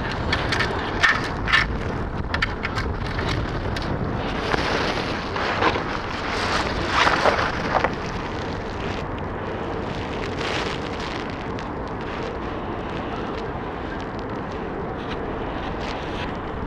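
Wind buffeting the microphone throughout. In the first half, a run of scrapes and rattles as wet sand is shaken out through a perforated metal sand scoop; after that only the wind is left.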